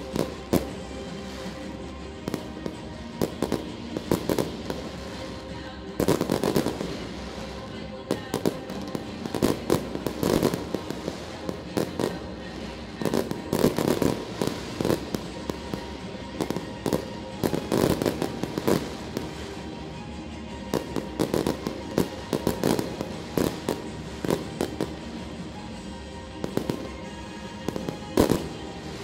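Fireworks display: many sharp bangs and crackling bursts, heaviest in clusters every few seconds, over music playing throughout.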